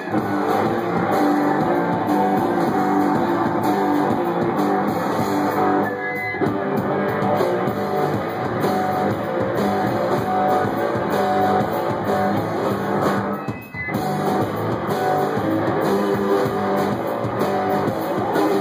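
Live punk-blues rock: electric guitar played hard over a drum kit, with no singing. The music drops out briefly about three quarters of the way through.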